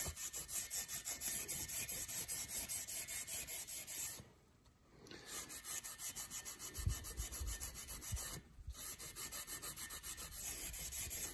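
Maroon Scotch-Brite abrasive pad scrubbed by hand back and forth across the aluminium deck face of a Jaguar V12 engine block, at about five strokes a second, cleaning old gasket residue off the head-gasket surface. The scrubbing stops briefly about four seconds in and again about eight and a half seconds in.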